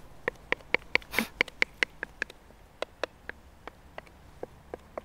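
A kitchen utensil knocking and scraping against a bowl as cake batter is tipped and scraped into a cake tin: a run of sharp taps, quick at first and then slower, with a short scrape about a second in.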